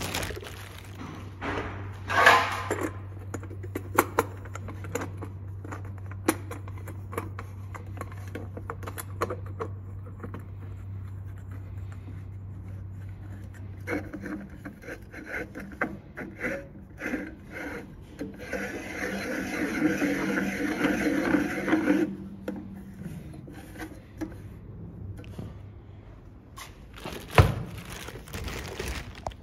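Handling noises as an air compressor's silencer is unpacked from its plastic wrap and screwed onto the pump head: plastic rustling, scattered clicks, knocks and scrapes. A steady low hum runs through the first half, and a burst of rustling comes about two thirds of the way in.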